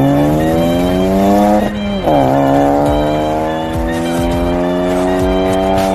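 Yamaha R15's single-cylinder engine accelerating, its pitch climbing steadily. About two seconds in, an upshift drops the revs sharply before they climb again.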